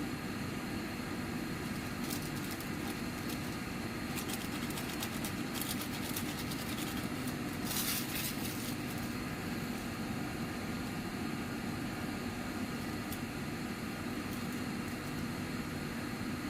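A steady machine hum, with a scatter of faint crackling clicks from about two to nine seconds in.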